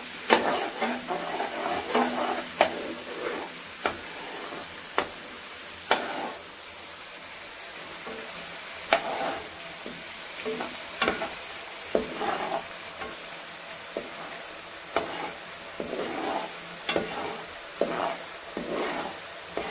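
Masala paste of blended onion, garlic and ginger sizzling in hot oil in a frying pan, stirred with a slotted metal spatula that scrapes and taps against the pan at irregular intervals.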